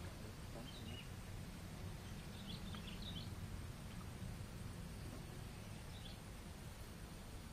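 Outdoor ambience: a low steady rumble with a few short, high bird chirps, about a second in, around three seconds in, and again near six seconds.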